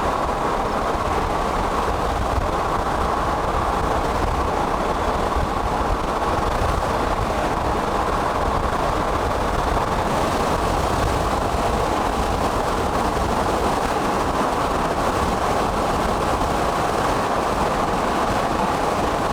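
Steady road and wind noise of a car driving, heard from inside the cabin.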